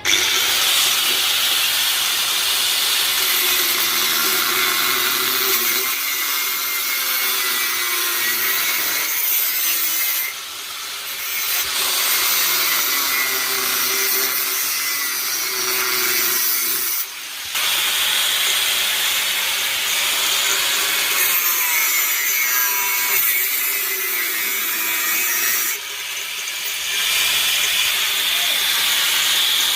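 Electric power tool, likely a grinder, abrading metal. It runs steadily with a hissing, scraping noise, its pitch wavering under load, and eases off briefly three times.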